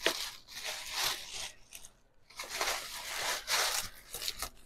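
Tissue paper rustling and crinkling as it is handled and pushed aside, in two stretches with a short pause about two seconds in.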